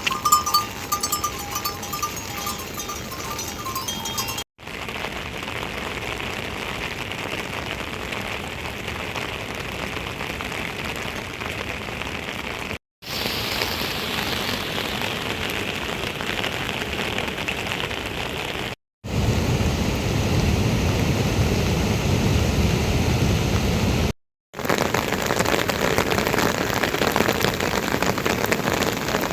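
Heavy rain pouring steadily, in several separate stretches broken by brief silent cuts. One stretch, about two-thirds of the way in, is louder and deeper than the rest.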